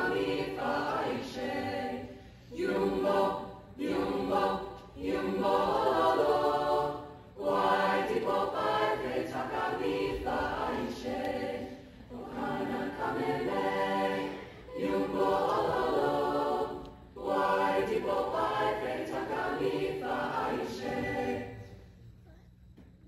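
A mixed high-school choir singing a cappella, a traditional Namibian song, in short phrases with brief breaks between them. The singing stops about a second before the end.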